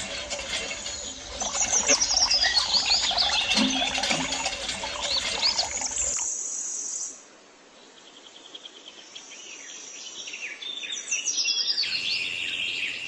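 Birds chirping, many quick high calls overlapping. About six seconds in the sound cuts off abruptly, then birdsong fades back in and grows louder toward the end.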